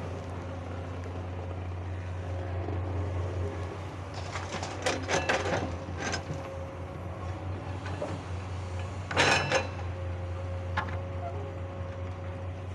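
Komatsu hydraulic excavator's diesel engine running with a steady low drone as the machine digs and swings. Louder rushing bursts come about five seconds in, as the bucket dumps soil into the dump truck's bed, and again briefly about nine seconds in.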